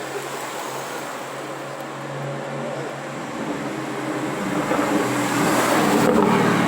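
A car engine and exhaust getting steadily louder as the car approaches, loudest about six seconds in.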